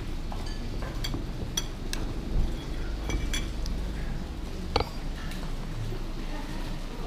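Metal spoon and fork clinking and scraping against a ceramic bowl while scooping noodles, a handful of sharp clinks with the loudest about five seconds in. A steady low hum runs underneath.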